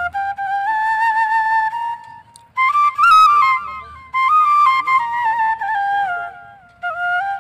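Bamboo flute (bashi) playing a Bhawaiya folk tune, a single melody line moving in small steps and slides, in three phrases with brief pauses between them.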